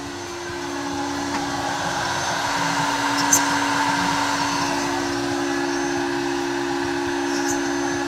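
Desktop NS-CNC milling machine running, its spindle cutting a jewelry wax model under water coolant: a steady hum with a whirring hiss over it, growing louder about a second in.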